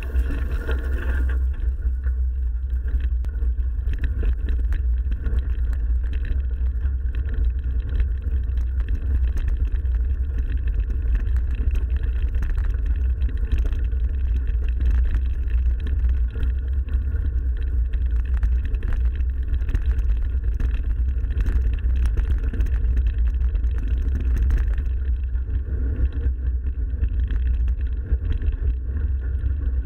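Mountain bike being ridden, heard through an action camera's microphone: a steady low rumble of wind and rolling noise, with frequent small knocks and rattles from the bike over rough ground.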